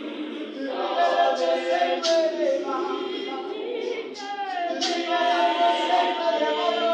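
Mixed choir of men and women singing a cappella in several voice parts, with no instruments. The singing swells louder about two-thirds of the way through.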